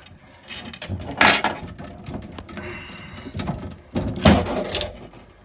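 Olive splitter squeezed onto a compression olive on a copper pipe: metal clicks and crunches as the blade bites into and cracks the olive, in three goes about a second in, around three and a half seconds, and between four and five seconds.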